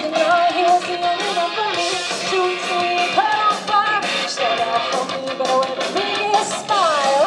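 Live rock band playing: a woman singing over strummed electric guitars, amplified through the stage PA. Her voice holds notes and slides down in pitch near the end.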